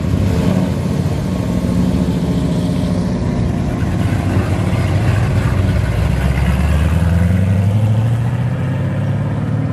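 Early-1970s Dodge Charger's engine running as the car pulls away, then accelerating, its note rising about six seconds in.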